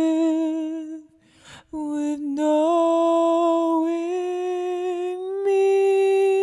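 A man singing a slow ballad line unaccompanied ('…happy with… with knowing me?') in long held notes with vibrato. He takes a quick audible breath about a second and a half in, and the pitch steps up for the final held note near the end.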